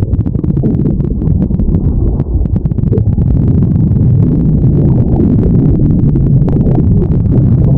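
Stomach growling: a loud, low, continuous rumbling gurgle with fine crackling through it.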